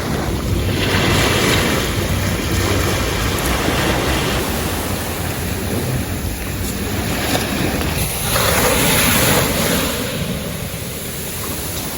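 Ocean surf washing onto a beach, with wind buffeting the microphone. The waves swell louder about a second in and again around eight to nine seconds in.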